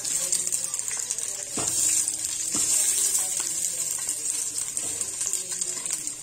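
Sliced onions sizzling in hot ghee in a steel pot, a steady high hiss, with a couple of soft knocks as more onion pieces drop in.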